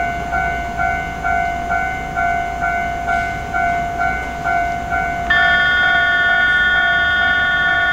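Railway electronic warning signal sounding a pulsed two-note tone, about two beats a second. About five seconds in, a steady chord of several held tones joins it.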